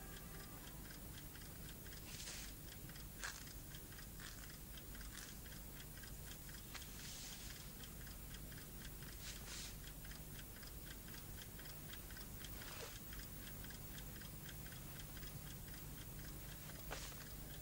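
Clock ticking steadily and faintly, with a few soft rustles and a sharper click about three seconds in.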